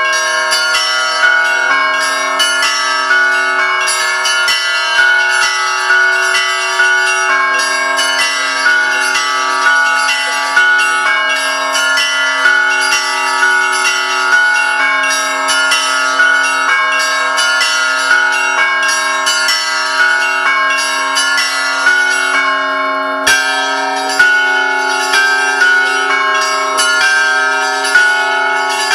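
Russian Orthodox church bells pealing: several bells of different pitches are struck over and over in a continuous peal, and the low bells ring on underneath the quicker strikes of the higher ones.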